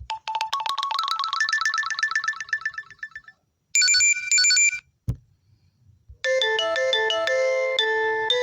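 Lenovo A5 smartphone ringtones previewed one after another. First comes a fast run of notes climbing in pitch for about three seconds, then a short bright electronic jingle about four seconds in. After a single click, a chiming melody starts about six seconds in.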